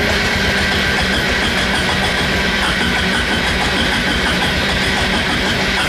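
Electric starter cranking the cold single-cylinder engine of a 2004 Honda Reflex scooter at 14°F, a steady, sustained crank without the engine catching, throttle closed so the starter enrichment circuit feeds it.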